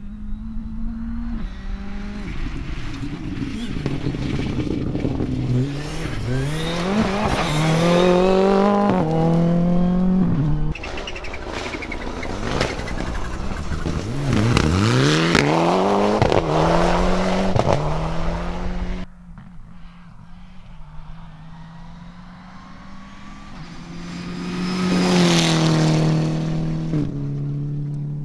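Rally car engines revving hard through gear changes as cars pass at speed. There are three loud passes, each with the pitch dropping as the car goes by, and sudden cuts between them.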